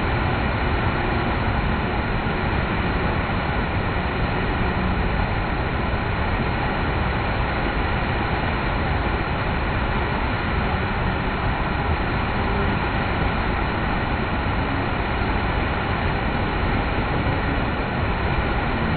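Steady rushing roar of a large whitewater river wave breaking over a hole, unchanging throughout.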